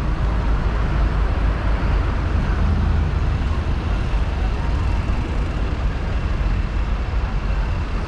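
Tractor engine running steadily at a slow driving pace, a continuous low rumble with a faint high whine over it.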